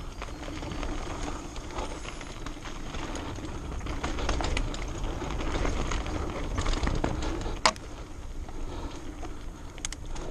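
Santa Cruz Nomad mountain bike riding fast down a dirt singletrack: steady tyre rumble and wind with a constant rattle and clicking from the chain and bike parts, and one sharp clank about three-quarters of the way through.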